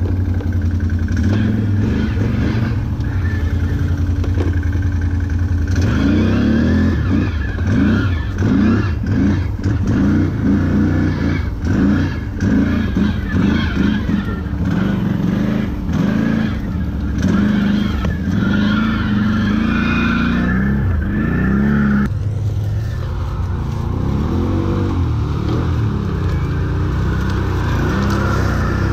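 Can-Am 6x6 ATV engine working at varying throttle, its pitch rising and falling repeatedly while pushing through dense brush, with many short knocks and rattles.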